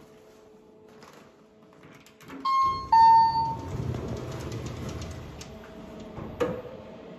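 Lift arrival chime on a Kone MonoSpace lift: two chime tones, the second slightly lower, about two and a half and three seconds in. Then the doors open with a rumbling, ticking noise, and there is a sharp clunk near the end.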